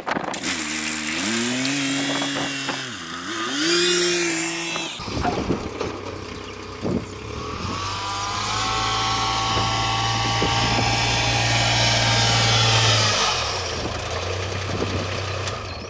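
Kubota RTV-X900 utility vehicle's three-cylinder diesel engine running and revving up and down, then driving, with a whine that rises in pitch, and dropping back to idle near the end.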